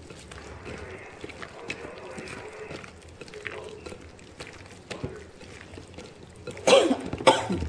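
Gloved hand squishing and turning chicken pieces through a wet egg-and-oil marinade in a glass bowl: soft wet squelching and sloshing. Near the end come two short, louder sounds that fall in pitch.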